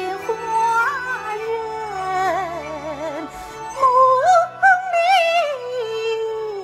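Kunqu opera singing: one voice draws out a slow, ornamented line of held, wavering notes over instrumental accompaniment, climbing to its highest and loudest notes about four seconds in.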